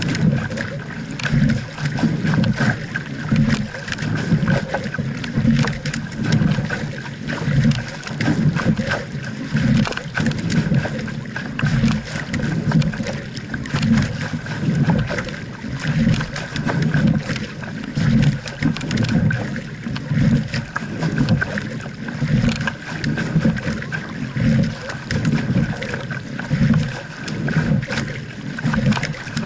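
Double scull being rowed: water rushing and splashing along the hull, with wind rumbling on the microphone in repeated low pulses.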